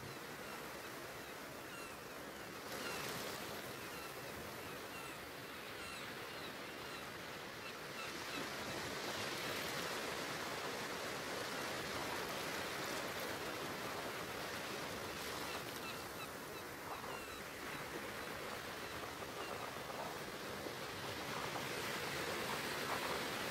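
A steady rushing, hiss-like noise, part of an electroacoustic soundtrack. It swells a little about three seconds in and again after about eight seconds, with faint high chirps in the first several seconds.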